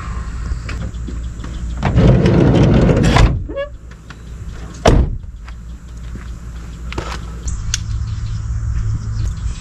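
A van's sliding side door rolled shut for about a second and a half, ending in a slam. About a second and a half later comes a single sharp door thump. A steady low rumble runs underneath.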